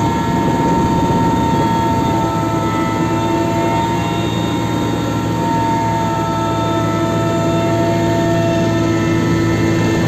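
Helicopter engine and rotor running steadily, heard from on board: a steady high turbine whine over a heavy low drone.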